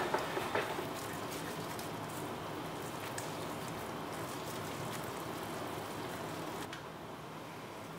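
Scrambled eggs sizzling in a stainless steel pan while wooden chopsticks stir them, with a few sharp clicks of the chopsticks against the pan near the start. The sizzle drops to a quieter level about two-thirds of the way through.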